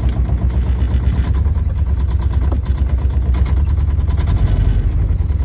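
Sailboat's engine idling steadily just after start-up, a low, even throb, left running to warm up before it is put in gear.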